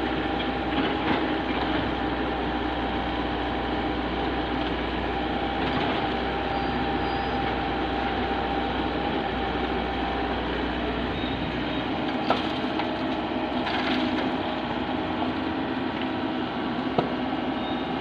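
Tracked excavator's diesel engine running steadily while it digs and loads a dump truck, with a sharp metal clank about twelve seconds in and another near the end.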